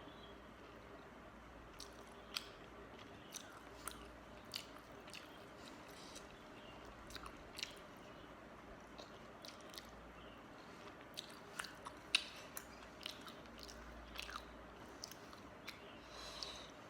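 A person chewing and eating close to the microphone, a meal of watery soaked rice with mashed potato and fish curry, with many irregular sharp mouth clicks and smacks.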